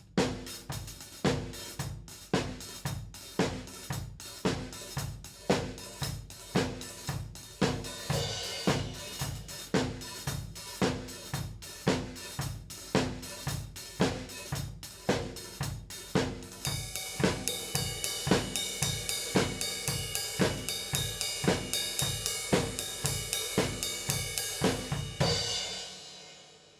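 Drum kit playing a steady beat with Paiste PST 3 cymbals, the cymbals struck over kick and snare. About two-thirds of the way in a brighter, washier cymbal rings over the beat. Near the end the playing stops and the cymbals ring out and fade.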